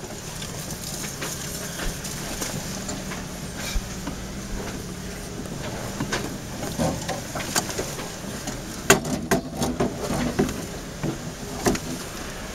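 4x4's engine running steadily at low speed as it crawls along a rough dirt trail, with scattered knocks and rattles from the vehicle going over bumps, a cluster of them about nine to ten seconds in.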